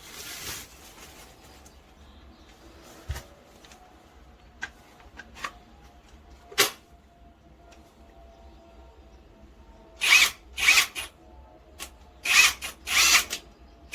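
SILVEL cordless brushless impact wrench run in several short bursts of about half a second each with quick trigger pulls, after a few handling clicks and knocks.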